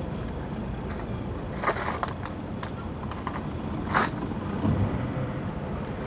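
Boat engines idling at a boat ramp, a steady low hum, with scattered irregular clicks and rattles, the loudest about four seconds in.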